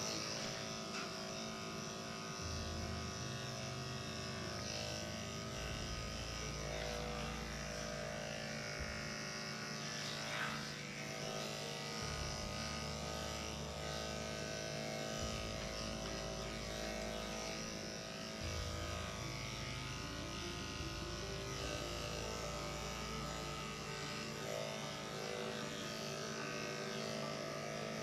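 Electric dog grooming clippers running steadily while trimming the dog's coat.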